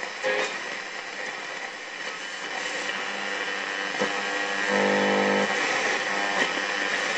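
VEF Spidola 230-1 transistor radio being tuned between stations: hiss and static from its speaker with faint brief tones and clicks, and a short humming tone about five seconds in.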